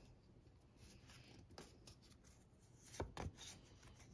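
Faint sounds of hands handling tarot cards, soft rubbing and sliding, with two short knocks a quarter second apart about three seconds in.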